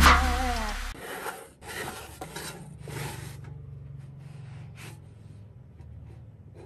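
Background music stops about a second in. After it come several short scraping strokes of a spatula rubbing on a nonstick griddle, over a low steady hum.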